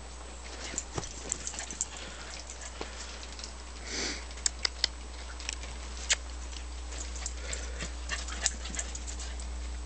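Small dog out on a leaf-strewn lawn: scattered light ticks and rustles over a steady low hum, with one short breathy sound about four seconds in.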